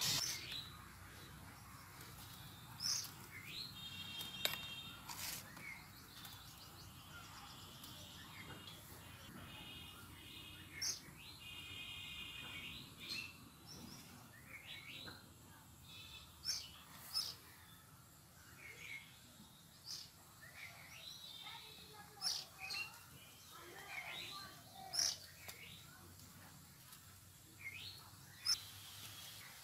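Birds chirping and calling, short calls scattered throughout, some in short pitched runs. A few sharp clicks stand out, one right at the start and one near the end.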